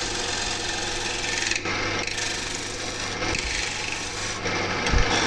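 Wood being shaped by abrasion: a steady rasping, rubbing sound of a tool working the surface of a wooden plate.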